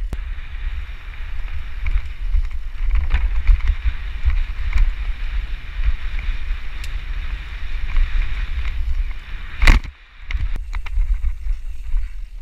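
Mountain bike riding fast down a dirt trail, heard through an action camera: steady wind rumble on the microphone, with the bike's clicks and knocks over the ground. A sharp, loud knock comes near the ten-second mark, then the sound drops briefly.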